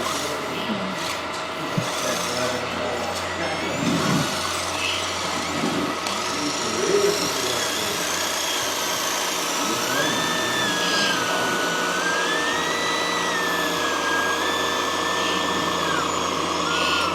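Small electric motor whining, stepping up and down in pitch several times over the last few seconds. This fits the hydraulic pump of a radio-controlled model mobile excavator changing speed as it works, heard over a steady mechanical background.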